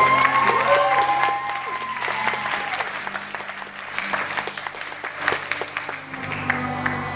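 Audience clapping and shouting whoops over backing music, the whoops in the first couple of seconds. The clapping thins out and the music comes forward near the end.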